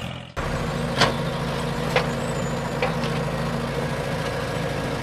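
A heavy machine's engine running steadily, with sharp clicks or clanks at about one, two and three seconds in. It starts after a brief drop in sound near the start.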